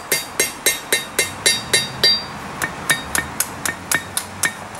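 Blacksmith's hand hammer striking hot steel on a Peter Wright anvil: about four ringing blows a second, lighter and a little quicker after about two seconds. The blows are upsetting the end of a forged poker's flared blade back into a flat edge.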